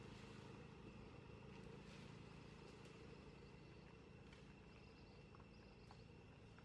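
Near silence: faint outdoor ambience with a steady low hum and a few faint ticks.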